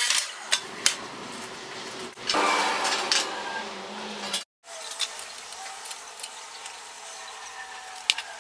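A miter saw cut through a walnut board ends just after the start. About two seconds later comes roughly two seconds of loud scraping as the board rubs against a steel frame, then quiet clicks and taps from handling on a workbench.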